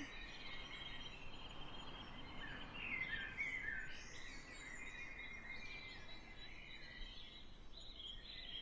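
Quiet ambience of birds chirping, many short high chirps and trills, over a steady low background hiss.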